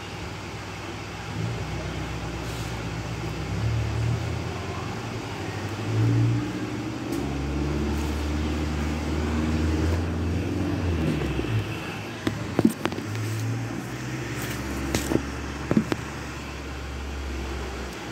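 Handling noise from a phone being moved about: a low, uneven rumble on its microphone, with a few sharp clicks in the second half.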